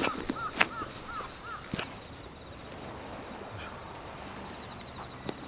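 A bird calls in a quick run of about six short, arching notes during the first second and a half, over a few sharp clicks and knocks of camping gear being handled. A steady outdoor hiss runs underneath.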